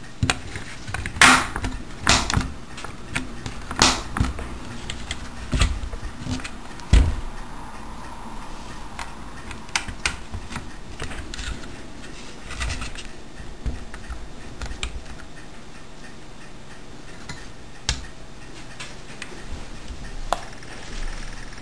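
Irregular clicks and knocks of hands handling the black housing of a homemade hard-disk clock: its front cover fitted over the platter, then a cable plugged into the back. The knocks come thick for the first seven seconds or so, then only now and then.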